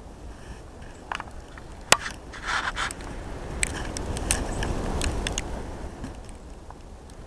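Snow shovel knocking and scraping in snow: a few sharp knocks, the loudest about two seconds in, a short scrape just after, then a run of crisp clicks, while a low rumble swells and fades in the middle.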